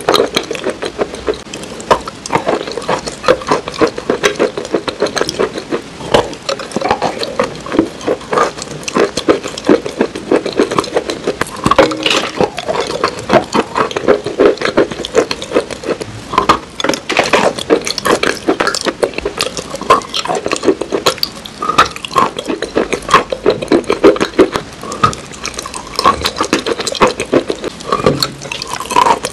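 Close-miked wet chewing and lip-smacking of a cream cake coated in dark cookie crumbs, a dense run of quick, sticky mouth clicks with no pause.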